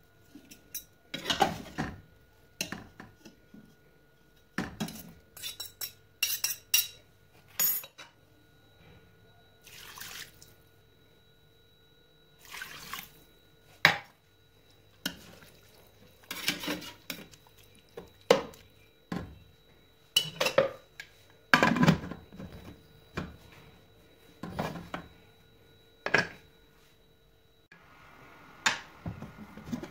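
A metal slotted spoon clinking, knocking and scraping against the sides of a pressure cooker pot as radish and greens are stirred, in irregular bursts with short pauses between.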